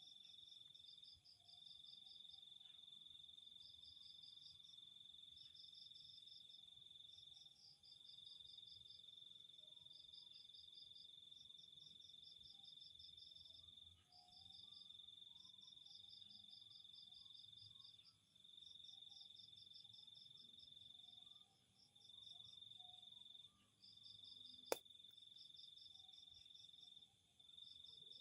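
Faint night insects: one holds a steady high trill that breaks off every few seconds, while another chirps in quick pulsed runs just above it. A single sharp click about three-quarters of the way through.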